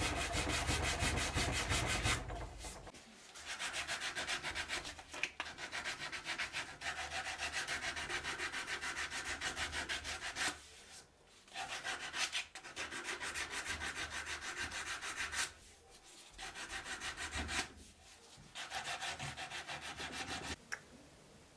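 Sandpaper rubbed back and forth by hand over a wooden cleaver handle in quick, even strokes, in runs broken by short pauses. It stops shortly before the end.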